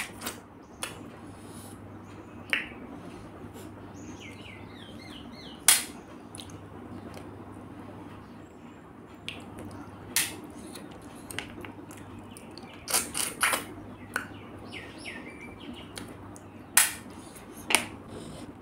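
Eating river snails: scattered sharp clicks and wet smacks from the shells and the mouth as the snail meat is picked out with a toothpick and eaten. A faint low hum runs underneath.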